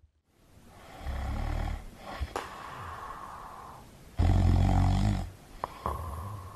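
A person snoring: two long, deep snores about three seconds apart, with a softer breath between them and a few faint clicks.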